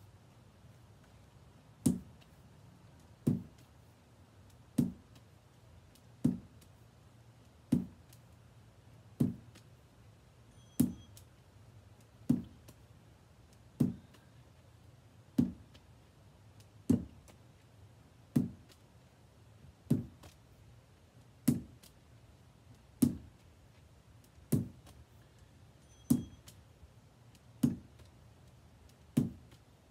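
A lacrosse ball being thrown and caught with a lacrosse stick in a steady drill: one sharp thud about every second and a half, nineteen in all, over quiet background.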